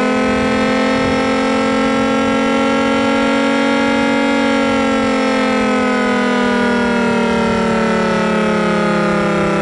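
Federal Signal Thunderbolt 1003 outdoor warning siren sounding a loud, steady single-pitched wail, its horn not sweeping past. The pitch creeps up a little, then sags slowly through the second half.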